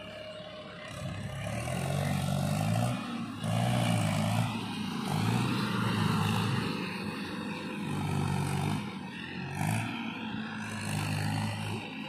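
Motor vehicles passing on the road close by, one of them a motorcycle, their engine sound swelling and fading several times, with a tractor engine running behind.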